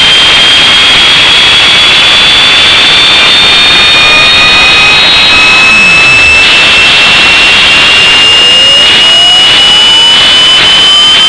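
Gas turbine jet engine running at full roar, with a strong high whine that climbs slowly in pitch as it spools up. Fainter tones dip about halfway through and then rise again.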